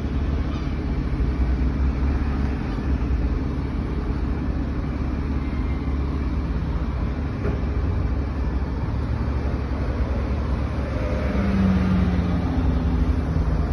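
Single-decker bus pulling away close by, its engine running with a steady low rumble; a stronger engine note comes in near the end as it picks up.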